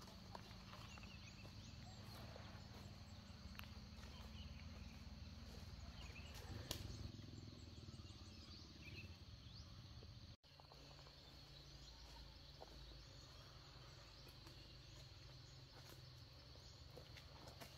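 Near silence: faint countryside ambience with a steady high insect tone and a few soft bird chirps.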